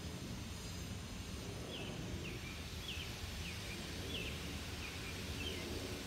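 A bird calling a run of about seven short, falling chirps, starting a couple of seconds in, over a steady low rumble of street noise.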